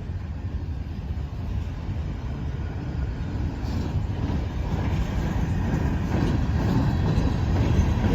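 Norfolk Southern manifest freight train rolling slowly through a road crossing: a low rumble that grows gradually louder.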